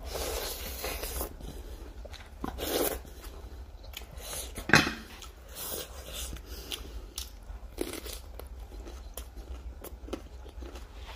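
Close-up crunching and chewing as crisp lettuce leaves and a lettuce wrap of chopped raw vegetables are bitten and chewed. Irregular crunches, the loudest a little under five seconds in.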